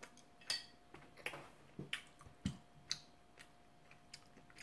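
Soft, irregular clicks and smacks of someone eating the last bites of raw salmon up close, about a dozen in a few seconds.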